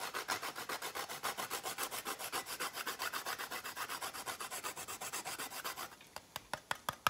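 A whole nutmeg being grated on a stainless steel rasp grater, in quick, even scraping strokes of about seven a second. The scraping stops about six seconds in, and a few light taps follow.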